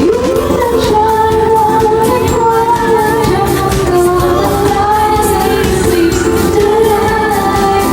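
Pop song with a singer's voice over a steady beat.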